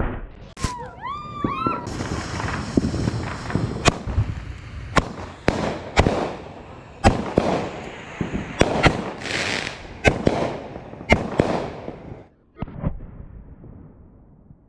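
Fireworks going off: sharp bangs in quick succession over a crackling hiss, with wavering whistles near the start. The barrage cuts off about twelve seconds in, followed by a couple of final bangs.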